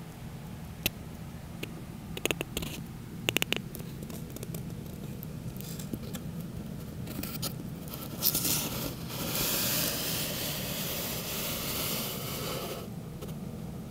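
Handling noise from a handheld camera: a few sharp clicks in the first four seconds, then scraping and rustling from about seven seconds on, over a low steady hum.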